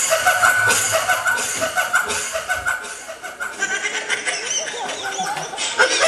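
Audience laughing, breaking out suddenly at the start, dipping about three seconds in and swelling again near the end.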